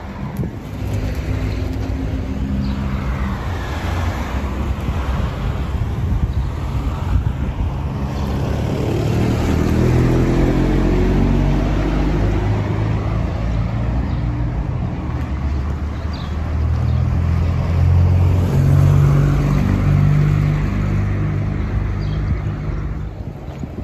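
Car engines passing close by on the street. One rises in pitch as it accelerates about ten seconds in, and another passes loudly near the end.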